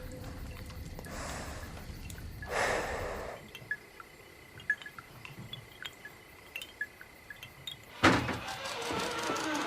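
Film sound effects: a low rumble with two brief hissing rushes, then scattered small clicks and creaks in near quiet, then a sudden loud thud about eight seconds in, followed by ringing and rattling.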